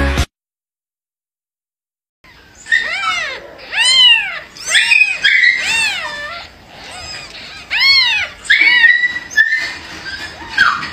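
Music cuts off at the start; after about two seconds of silence, several newborn kittens mew over one another, each cry a high call that rises and then falls, repeating every half second or so.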